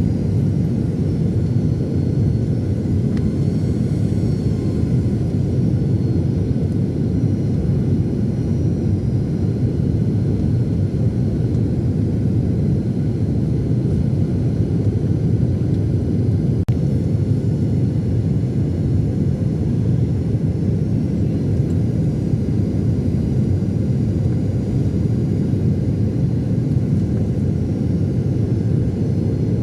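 Airplane engine noise: a steady, unchanging low drone with no rise or fall in pitch. A single brief click comes a little past halfway through.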